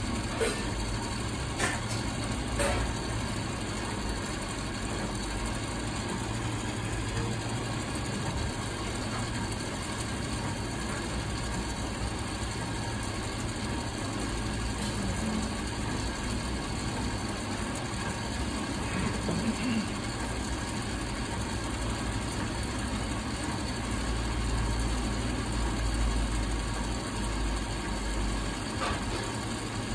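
Ice maker running: a steady mechanical hum with a few sharp clicks in the first three seconds and a low rumble that swells about 24 seconds in.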